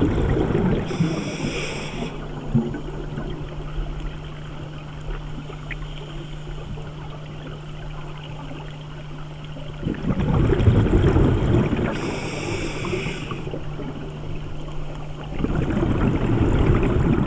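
Scuba regulator breathing heard underwater: surges of exhaled bubbles rumbling near the start, around ten seconds in and near the end, with a short high hiss twice, over a steady low hum.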